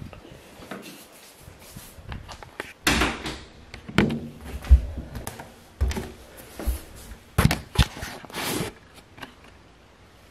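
Irregular knocks and thumps, about eight of them, from a camera being handled and set down on a tiled floor and a bare foot stepping onto a digital bathroom scale.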